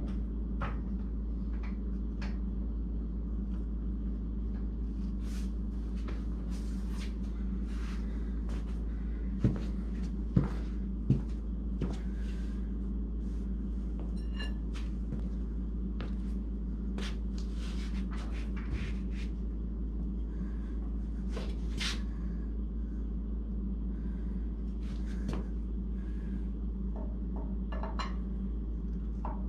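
Scattered clicks, clunks and knocks of hand work on metal parts while an engine is fitted into a car, with three sharp knocks in quick succession about ten seconds in, over a steady low hum.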